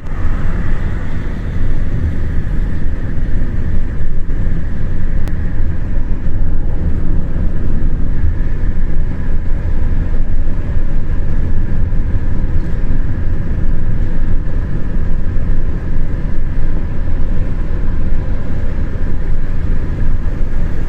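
Steady rumble of a moving vehicle heard from inside, road and engine noise running evenly without a break.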